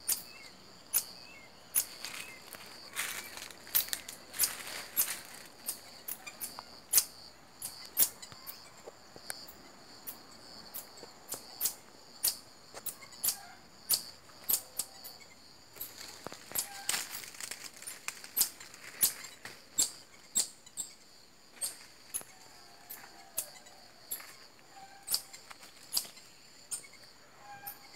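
Marmosets calling: short, sharp chirps repeated irregularly, about one or two a second, over a steady high-pitched insect drone.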